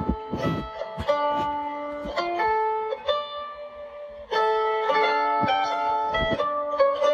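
Instrumental music: a melody of plucked string notes, with a few low thumps under it.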